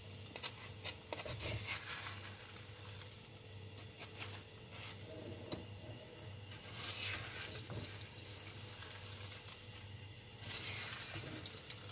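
Wooden spatula stirring sugar-coated peanuts in a frying pan, the nuts rattling and scraping against the pan in irregular small clicks with a faint sizzle, and a few louder scraping passes about seven seconds in and near the end. This is the stage where the loose crystallized sugar is being worked onto the nuts, near the end of cooking.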